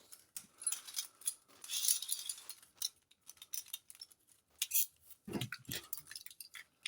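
Scattered light plastic clicks and clinks of Beyblade tops and launchers being handled and set up between rounds, with a brief faint hiss about two seconds in and a few sharper clicks near the end.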